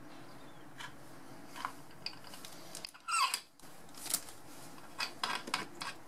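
Small metal clicks and scrapes from a brass compression nut being handled and fitted onto a copper pipe joint, with a louder squeaky scrape about halfway through.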